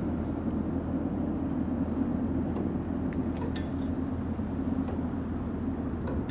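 Steady low rumble of harbour ambience, like distant engines or machinery running, with a few faint short high chirps.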